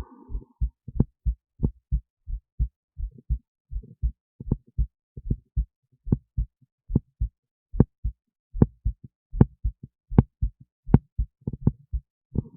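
Human heartbeat picked up by an esophageal stethoscope resting in the esophagus beside the heart: a steady run of short, low lub-dub thumps in pairs, a little under one heartbeat a second.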